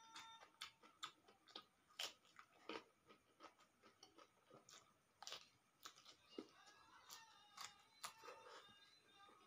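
Faint mouth sounds of someone eating by hand: chewing, with irregular sharp lip-smacking clicks several times a second.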